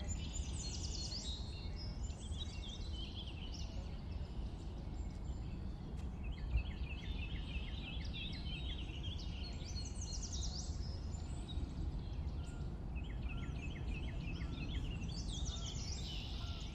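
Songbirds singing in separate phrases: high descending trills and quick runs of repeated notes, coming every few seconds, over a steady low background rumble.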